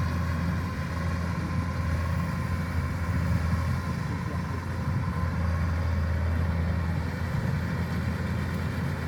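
Kubota rice combine harvester running steadily: an even low engine hum with a faint, steady high tone above it.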